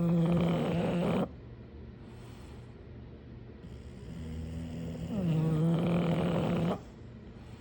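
English bulldog snoring in its sleep: two long snores, one right at the start and one about five seconds in, each lasting about a second and a half, with quieter breathing between them.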